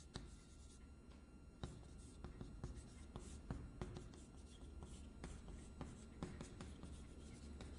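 Chalk writing on a blackboard: faint, irregular taps and scratches as the chalk forms Chinese characters.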